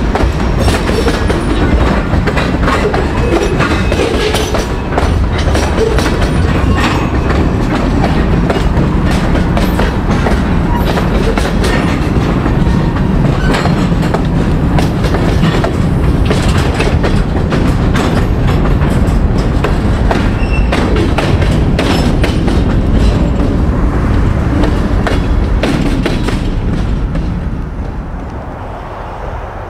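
Norfolk Southern freight train's cars rolling past with a steady rumble and wheels clicking over the rail joints. The sound drops away near the end.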